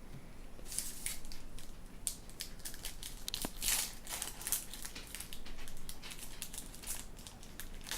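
Crinkling of a foil booster-pack wrapper being handled and opened: a dense run of sharp crackles starting about a second in.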